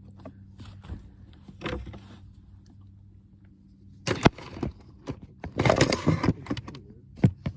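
Handling noise from a camera being moved and set in place: scattered knocks and clicks, with a scraping rustle a little past the middle, over a steady low hum.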